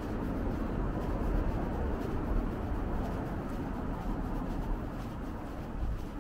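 Steady city street background: a hum of distant traffic with a low rumble, and faint ticks of footsteps on pavement.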